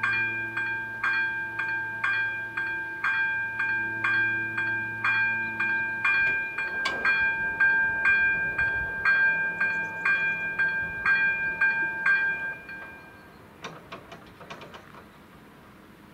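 A bell struck over and over, about twice a second, each strike ringing on into the next, then stopping about twelve and a half seconds in.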